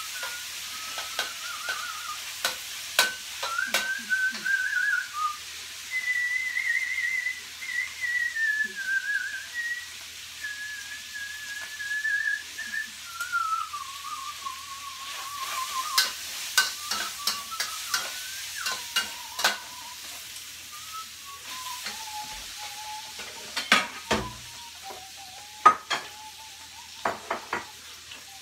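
Meat stir-frying in a wok: a steady sizzle, with the spatula clicking and scraping against the pan, in clusters of sharp knocks. Over it, a person whistles a slow, wandering tune.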